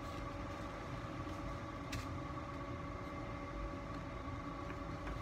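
Steady hum of room machinery with a low rumble, and a single faint click about two seconds in.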